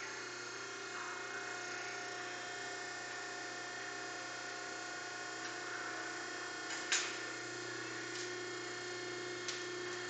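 Selco vertical cardboard baler running its press cycle: the electric hydraulic pump motor hums steadily while the platen comes down. A sharp click about seven seconds in, and fainter ticks after it.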